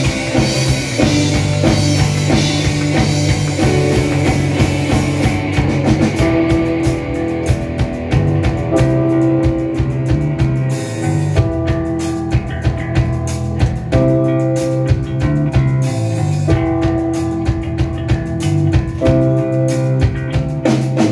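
A live rock band playing electric guitars, bass guitar, drum kit and piano, with a steady drum beat under sustained bass notes, heard from the audience in a theatre.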